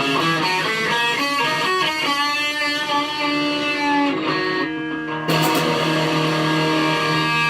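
Electric guitar being played for a tone test: a run of picked notes, then a chord struck about five seconds in that rings on.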